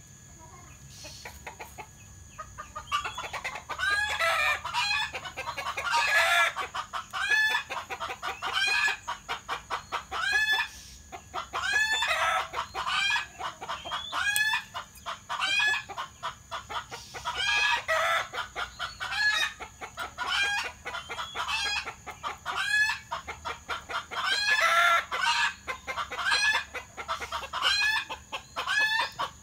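Chickens clucking, a steady run of repeated calls that starts about three seconds in and keeps going.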